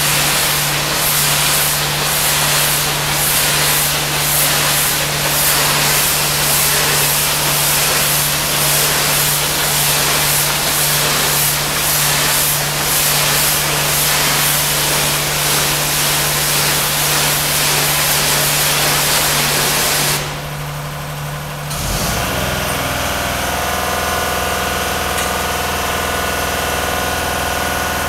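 Engine-driven pressure washer spraying, a loud steady hiss over the engine's hum. About twenty seconds in the spray cuts off suddenly and the engine settles into a steady idle.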